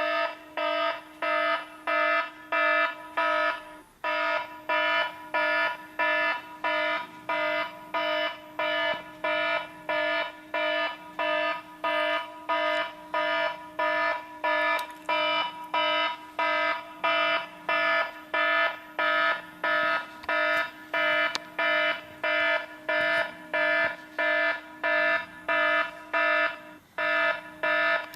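Model railway level-crossing warning signal ringing its electronic 'kan-kan' tone over and over, a little over two strokes a second, with a brief break twice.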